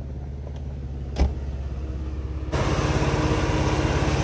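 Mercedes-Benz W124 300E's M103 3.0-litre straight-six idling steadily and smoothly. A single thump comes about a second in, and about two and a half seconds in the idle suddenly becomes louder and fuller as it is heard at the open engine bay.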